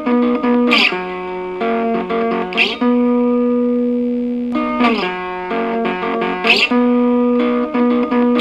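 Guitar-led music: held chords with a strong strummed accent about every two seconds.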